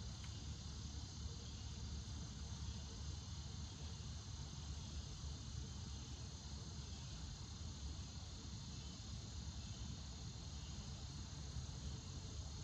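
Steady evening chorus of insects, several high thin tones held constant, over a low steady rumble.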